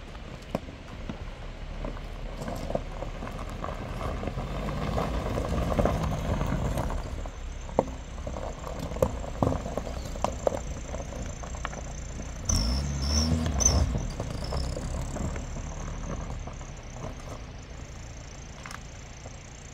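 Peugeot 405 sedan creeping down a steep gravel track, its engine and tyres rumbling over loose stones and growing louder as it comes close, with sharp pops of stones under the tyres. About two-thirds of the way through, the engine revs briefly with a short high squeal as the car pulls away, and the sound then fades as it drives off.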